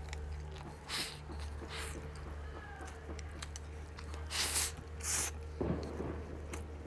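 Close-miked eating of a bowl of rice with chopsticks: chewing, with several short noisy mouth sounds, over a steady low hum.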